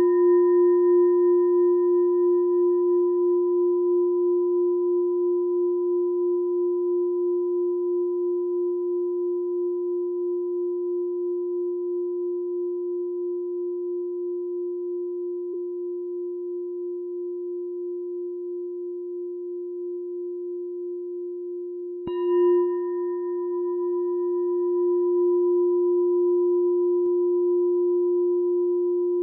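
A meditation bell ringing on in one long, slowly fading tone with a gentle pulsing waver. It is struck again about 22 seconds in and rings on.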